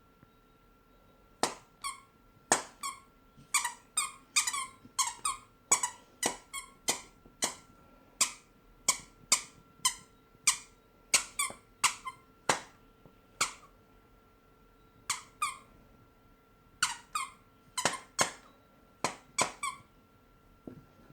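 A long series of short, sharp squeaks, many coming in quick pairs, with a pause of a couple of seconds past the middle. A faint steady whine runs underneath.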